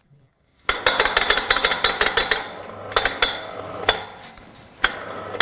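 Steel hoist cable being pulled down over the pulleys and along the hoist's aluminium ladder, rattling and clinking rapidly from just under a second in, with a few sharper metallic knocks and a faint steady low hum underneath.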